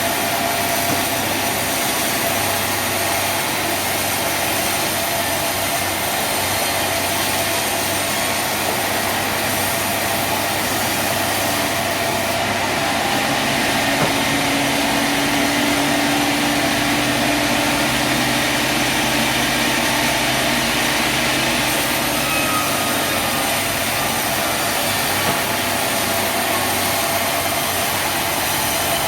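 Sawmill machinery running steadily with a continuous mechanical hum, its tone shifting for about ten seconds midway.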